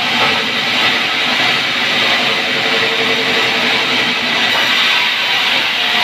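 Sawmill band saw running steadily as a log is pushed through the blade, a continuous loud noise with a steady hum underneath.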